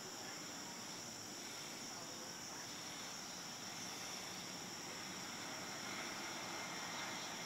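Steady high-pitched insect chorus, crickets trilling without pause, over a faint even background hiss.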